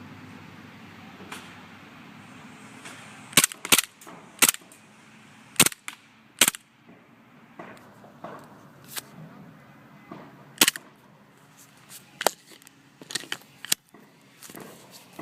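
WE Glock 17 gas blowback airsoft pistol firing about ten shots at irregular intervals, each a sharp crack of gas release and the slide cycling.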